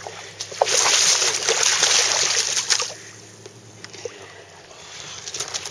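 Water splashing and sloshing around a northern pike being handled in shallow water, loud for about two seconds from around half a second in, then dropping to faint trickling and lapping.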